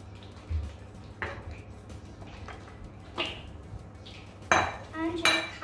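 Kitchen bowls and utensils clattering on a worktop as ingredients are tipped from bowls into a plastic mixing bowl: several separate knocks and clinks, the loudest about four and a half seconds in.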